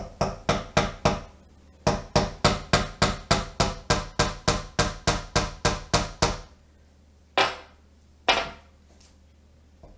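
Hammer tapping a nail into a wooden craft letter to make a guide hole for a cup hook. A few light taps come first, then after a short pause an even run of quick taps, about four a second, for some four seconds. Two louder single sounds follow near the end.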